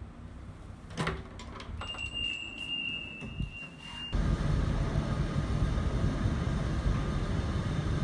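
Front-door lock and latch clicking as the door is worked, then a steady high electronic beep lasting about two seconds. It cuts off abruptly and gives way to a louder, steady low rumble.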